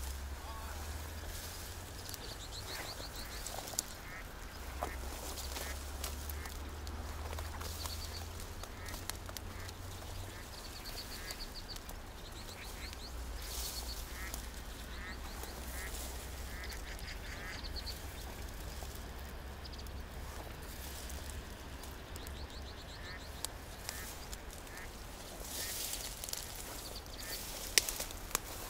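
Short animal calls, repeated many times in quick little series, over a steady low wind rumble on the microphone. Near the end, rustling with a few sharp clicks.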